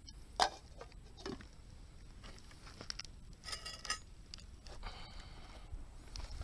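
Light clinks and knocks of camping cookware being handled, metal and glassware tapping together, with a couple of short high-pitched squeaks or tones in the middle.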